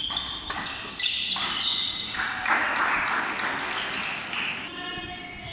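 Badminton doubles rally on a wooden indoor court: sharp racket hits on the shuttlecock and short squeaks of court shoes in the first second. Then a couple of seconds of noisy hall sound and voices as the point ends.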